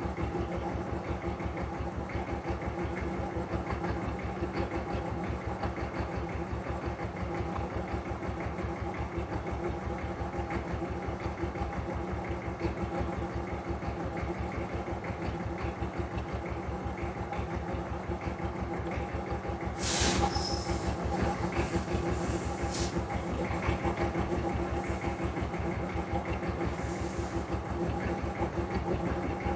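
An engine idling steadily in the background, an even pulsing beat. From about two-thirds in, a few short scratchy hisses come from a brush scrubbing the oily injection pump.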